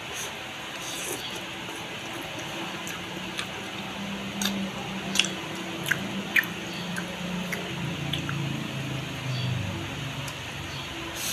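A person chewing and slurping noodles close to the microphone, with wet mouth sounds and a scattering of sharp clicks.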